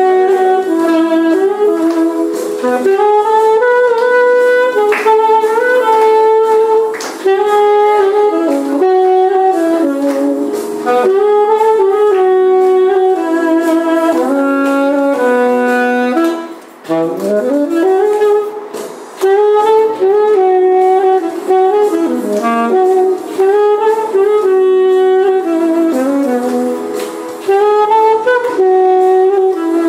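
Saxophone playing a melody live at close range. Near the middle it breaks off briefly, then comes back in with a note sliding up from low.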